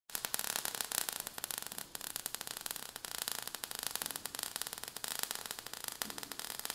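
Quiet, continuous crackling and fizzing made of many tiny rapid clicks: a sparks sound effect.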